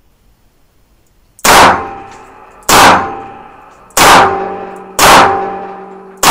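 Five shots from a Smith & Wesson Model 60 snub-nosed .38 Special revolver fired in fairly quick succession, about a second and a quarter apart, starting about a second and a half in. Each shot is followed by a long ringing echo from the enclosed shooting bay.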